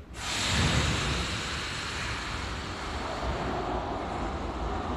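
81-717/714-type metro train pulling out of an underground station: a sudden rush of hissing noise just after the start, then steady running noise with a low whine rising in pitch as it gathers speed.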